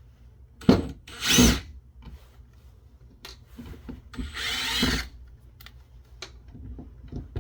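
Power screwdriver running in two bursts as screws are backed out of the radio's housing: a short whir about a second in and a longer one around four to five seconds in, its pitch wavering, with a sharp click just before the first.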